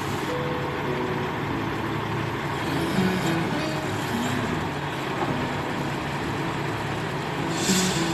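DAF XF boom truck's diesel engine running steadily to power its hydraulic crane as the crane arm is raised and unfolded by hand levers, with background music over it. A short hiss comes near the end.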